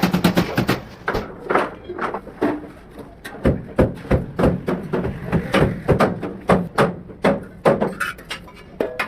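An irregular series of knocks and taps, a few a second, from work in a vehicle repair workshop.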